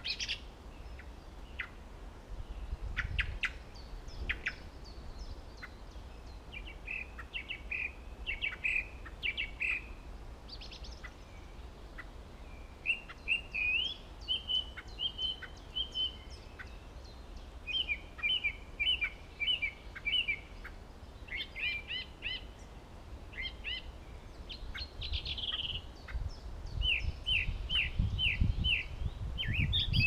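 Song thrush singing, short phrases of the same note repeated three to five times before changing. A low rumble builds near the end.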